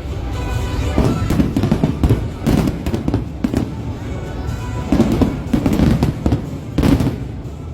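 Aerial fireworks going off one after another: a string of sharp booms and crackles over a continuous low rumble, with music playing underneath.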